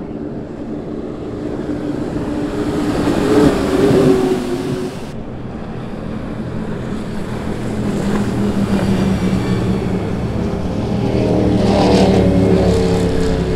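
High-performance powerboats running at speed on a river, engines steady at high revs. One boat passes loudest about four seconds in, the sound breaks off suddenly about a second later, and another boat's engines grow louder to a peak near the end.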